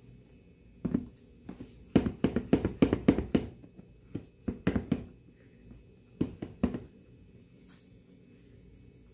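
Plastic storage container with a snap-on flip-top lid being handled on a stone countertop: a run of sharp plastic clacks and knocks as the lid is pressed on and the container is set down. The clacks come in clusters, one about a second in, a quick burst from two to three and a half seconds, and more around five and six and a half seconds.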